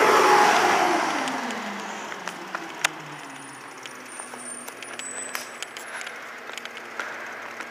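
Freightliner garbage truck with a McNeilus rear-loader body passing close and pulling away: its engine is loud at first, then falls in pitch and fades over the first two or three seconds, leaving a low engine hum down the street with a few sharp clicks.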